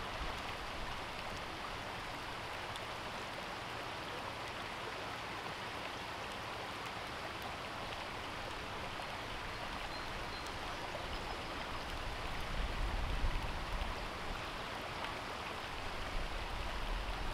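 Shallow stream running over stones, a steady babbling wash of water, with a low rumble coming up from about twelve seconds in.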